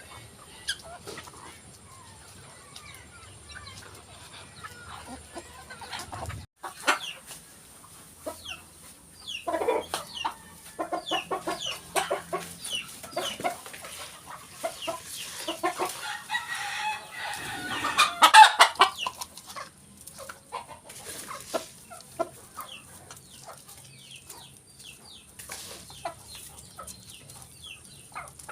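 A flock of chickens clucking, with a rooster crowing loudly about two-thirds of the way through.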